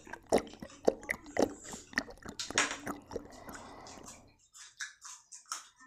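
Close-miked crunchy chewing of raw yardlong bean (sitaw), at about two crunches a second, becoming sparser and fainter in the last second and a half.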